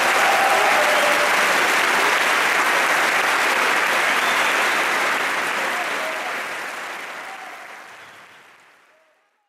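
Audience applauding, a dense steady clapping that fades away over the last few seconds.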